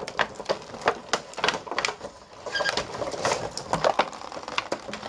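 Clear plastic packaging film crinkling and crackling irregularly as hands peel and crumple it off toy eggs.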